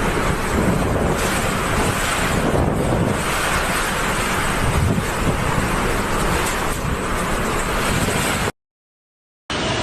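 Typhoon winds blowing hard, a loud steady rush with gusts buffeting the microphone. The sound cuts out for about a second near the end, then a similar rush resumes.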